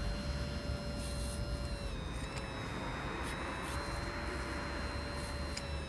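Hydraulic pump of a radio-controlled hydraulic excavator running with a steady whine, its pitch dipping briefly about two seconds in and again near the end as the boom and bucket are worked into sand.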